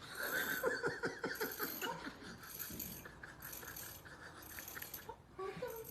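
Teeth of a comb being scratched, a rapid ratcheting run of clicks. The clicks are densest in the first two seconds, then thin out.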